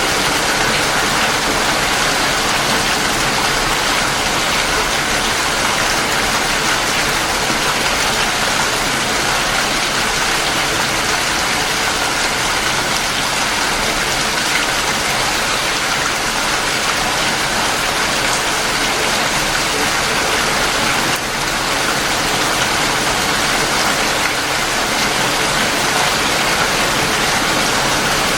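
Steady heavy rain falling, a dense, even hiss with no break.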